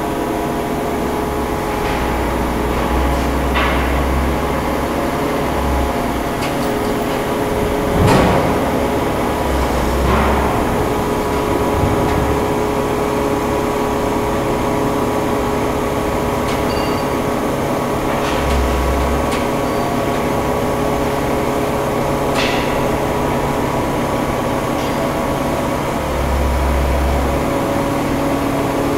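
3000-ton hot forming press running with a steady multi-tone machine hum while its upper die lowers onto a red-hot steel plate to press a dished tank head. Scattered metallic knocks ring out over the hum, the loudest about eight seconds in.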